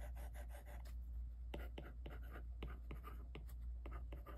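Replacement stylus tip on an Apple Pencil clicking and scratching against a glass touchscreen as it draws quick short strokes and writes letters, giving many small irregular taps. A steady low hum sits underneath.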